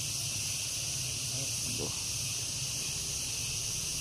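Steady high-pitched outdoor hiss with a low hum underneath; a faint brief voice sounds about two seconds in.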